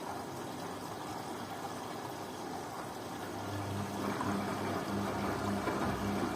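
Beko washing machine on a synthetics 50° wash: water swishing in the drum. About halfway through, a steady low hum from a motor or pump sets in alongside the water.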